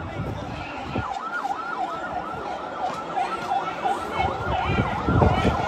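Emergency-vehicle siren in a fast yelp, its pitch sweeping down and back up about three times a second.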